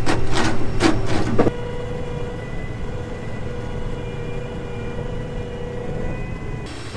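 Farm vehicle running, heard as a steady hum of a few even pitches. Several loud knocks or rattles come in the first second and a half, and the sound changes abruptly near the end.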